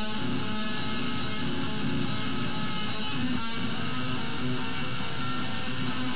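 Electric guitar playing a metal riff, with sustained low notes and a steady, even rhythm of sharp high ticks alongside.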